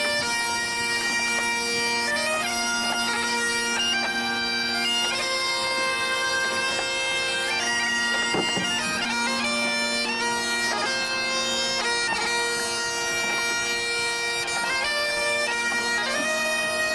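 Biniou braz (Breton bagpipe) and bombarde playing a tune together over the bagpipe's steady drone.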